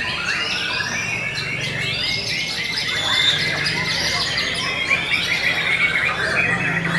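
Several caged white-rumped shamas singing at once: a dense, overlapping chorus of rapid whistles, chirps and trills.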